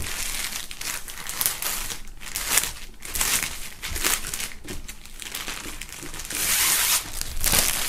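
Clear plastic film wrapping crinkling as a folded fabric flag is worked out of its bag by hand, in irregular rustling bursts, loudest near the end.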